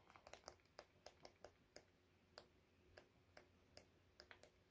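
Faint, irregular light clicks and ticks, a few a second, from the sheets of a patterned paper pad being leafed through.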